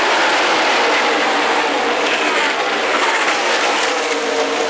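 Pack of NASCAR Cup stock cars with V8 engines racing past at full speed: a dense, continuous engine noise, with the notes of passing cars dropping in pitch as they go by.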